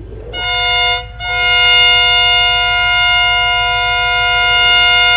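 Locomotive air horn sounding several notes at once as a chord: a short blast that breaks off about a second in, then a long steady blast.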